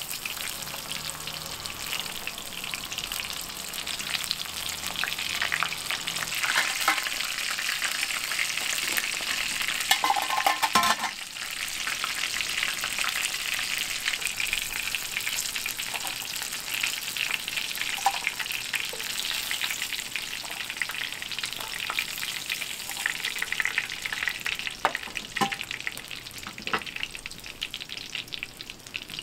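Breaded chicken drumsticks deep-frying in rendered beef-intestine (daechang) fat: a steady sizzle with crackling. It swells with a louder burst around ten seconds in and eases off near the end.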